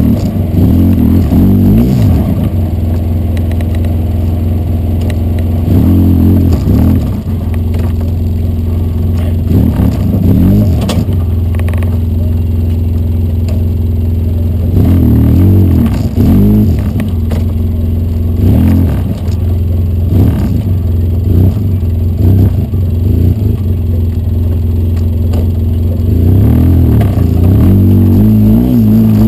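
Polaris RZR side-by-side's engine running steadily under way, revving up and dropping back in several bursts a few seconds apart.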